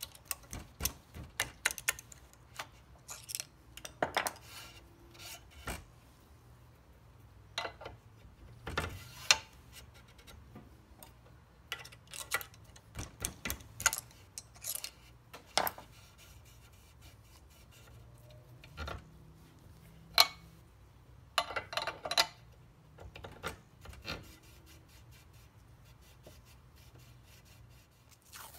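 Steel swing-arm spindle of a Norton Commando 850 being slid and worked through its tight bushes: irregular metallic clicks, knocks and scraping rubs, with a few louder clusters of clatter.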